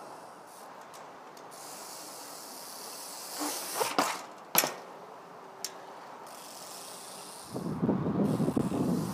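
Onza Pro Zoot trials bike striking a stone wall about four seconds in, then a sharp landing impact half a second later, the loudest sound. A faint steady hiss lies underneath, and wind rumbles on the microphone near the end.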